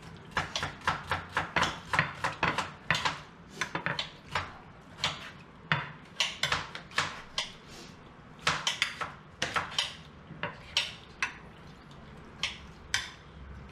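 A metal spoon clinking and scraping against a glass baking dish as diced raw fish in lime juice is stirred, with knives tapping on cutting boards as vegetables are diced. It is an irregular run of sharp clicks and taps, several a second, sometimes in quick clusters.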